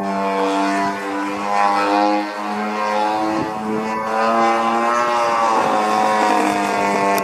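Gasoline engine and propeller of a Hangar 9 Cap 232 RC aerobatic plane flying overhead. The note runs continuously, its pitch wavering up and down with throttle and the plane's movement, and it is loudest in the second half.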